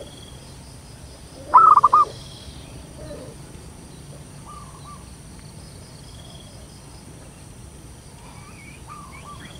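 Zebra dove (perkutut) giving a short burst of rapid cooing notes about a second and a half in. Fainter, similar short coos follow from further off, around the middle and again near the end.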